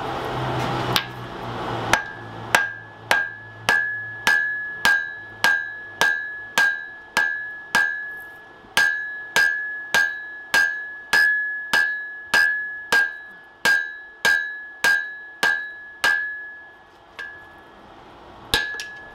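Hand hammer blows on a red-hot wrought iron hammer head on a Dudley anvil, flattening its peen: steady strikes about two a second, each with a clear ring from the anvil, stopping about 16 seconds in, then two more blows near the end.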